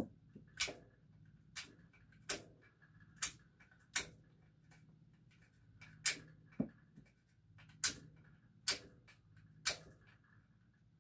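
LULA universal magazine loader stripping 9mm cartridges one at a time out of a Springfield Hellcat magazine: about ten sharp clicks, most under a second apart, with a short pause near the middle.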